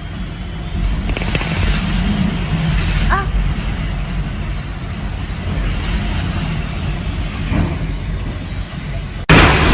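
Typhoon wind blowing hard, a heavy low rumble with gusts buffeting the microphone. Near the end it suddenly becomes a louder, fuller rush.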